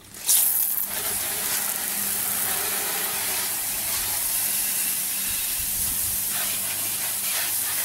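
Water spraying from the jets of a garden-hose-fed PVC undercarriage-washer wand onto wet pavement and the underside of an SUV: the spray comes on sharply just after the start, then settles into a steady hiss.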